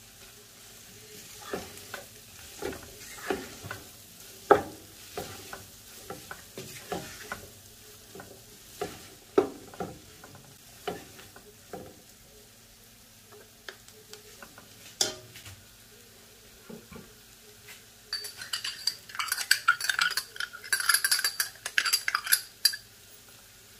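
Wooden spatula stirring and scraping vegetables and chicken in a nonstick wok, with scattered knocks against the pan. Near the end, a quick run of sharp clicks and scrapes as a metal spoon works inside a small glass jar of sauce.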